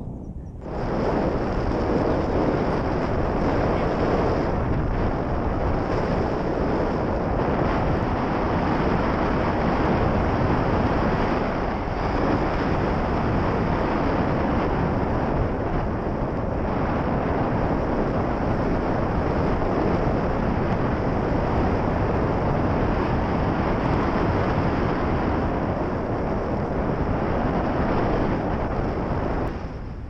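Airflow from a paraglider's flight buffeting a selfie-stick action camera's microphone: a loud, steady wind rush that starts abruptly just under a second in and eases near the end.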